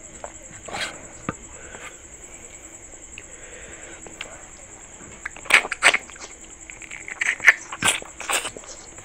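Fingers mixing rice and curry on a steel plate: short wet squishes and scrapes, the loudest in the second half. A steady high insect trill runs underneath.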